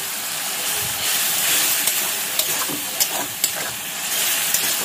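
Ginger, garlic and green chilli paste sizzling in hot oil with fried onions and tomatoes in a wok (kadai). A spatula stirs it, with a few sharp taps and scrapes against the pan.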